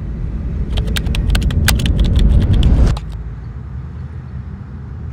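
A deep rumble swelling, with a quick run of sharp crackles and clicks over it, then cutting off abruptly about three seconds in, leaving a quieter steady low rumble.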